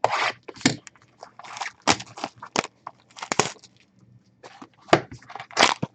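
Trading card packaging being handled: a string of short, irregular crinkles, rustles and scrapes of pack wrappers and cardboard.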